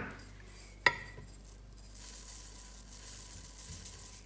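A sharp clink against a glass bowl just under a second in, then dry sesame seeds pouring into the bowl with a steady, high hiss.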